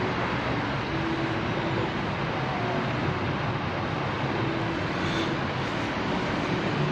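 Steady city ambience: a constant rush of distant road traffic with a faint engine hum underneath.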